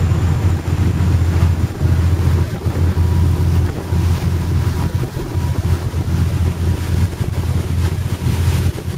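Steady low drone of a passenger ferry under way, with wind buffeting the microphone.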